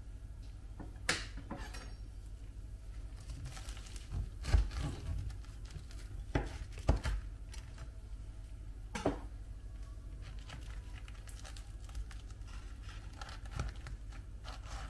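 Food preparation handling sounds: scattered clicks, knocks and rustling of food and kitchen utensils being handled, the loudest knocks a third of the way in and near the middle, over a steady low hum.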